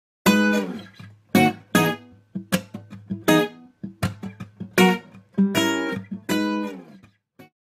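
Intro music on acoustic guitar: plucked and strummed chords, each struck sharply and ringing out, in a loose rhythm that stops just before the end.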